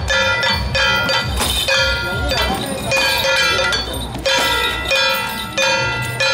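Gongs and drums of a Taiwanese temple-procession troupe (Ba Jia Jiang accompaniment): a ringing metal gong struck in a steady beat about twice a second over drum thuds.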